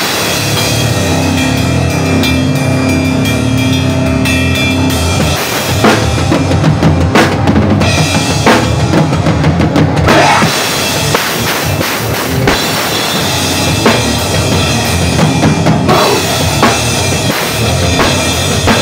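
A band playing loud live: a drum kit with bass drum, snare and cymbals driving under electric guitars and bass guitar.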